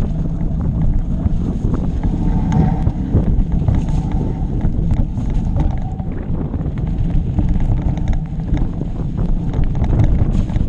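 Wind buffeting the microphone of a camera riding on a mountain bike, a loud steady rumble, with many short clicks and rattles from the bike and tyres running over the rough trail.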